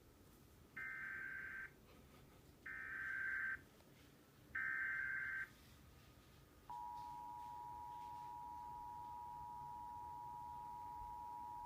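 Emergency Alert System header: three short bursts of warbling SAME data tones about two seconds apart, then the steady two-tone EAS attention signal starting about seven seconds in and holding. The sequence marks the start of a broadcast severe weather warning.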